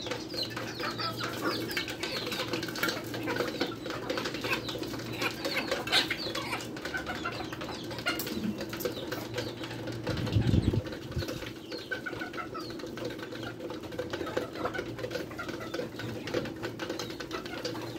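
A flock of village chickens feeding from a wide basin: many quick pecks tapping on it, soft clucks and chirps, and some flapping of wings, over a steady low hum. A brief low rumble comes about ten seconds in.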